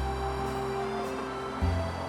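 Slow, calm background music of held notes over a deep bass, with a new bass note coming in just as it starts and again near the end.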